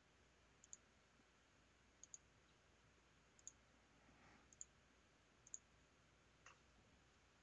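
Faint computer mouse button clicks, about six of them a second or so apart, most heard as a quick double tick of press and release, over near-silent room tone.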